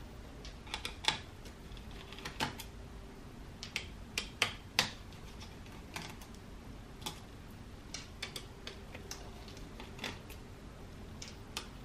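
Small precision screwdriver taking out a laptop's heatsink screws: scattered light metallic clicks and ticks of the bit working the tiny screws, several coming close together about four to five seconds in.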